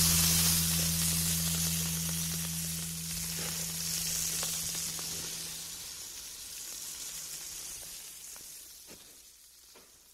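A steady sizzling hiss with a few faint crackles, fading slowly away to nothing. The song's last low held notes die out in the first few seconds.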